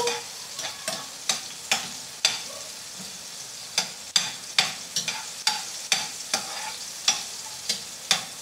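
Chopped tomatoes sizzling in hot oil in a frying pan while being sautéed, with a spatula stirring them and knocking and scraping against the pan in sharp clicks about two a second, pausing briefly around the middle.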